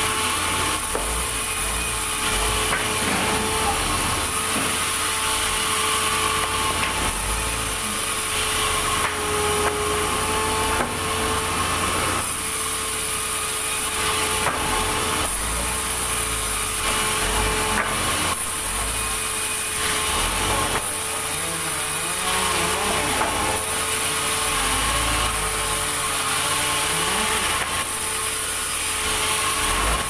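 Large vertical band saw running and ripping wooden slabs: a steady whine over the noise of the blade cutting through timber, with occasional knocks as boards are handled.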